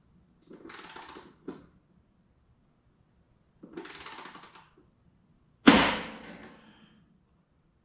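Metal hand-tool work while fitting a running board: two short clicking, rattling bursts about three seconds apart, then one loud metallic clank that rings out briefly.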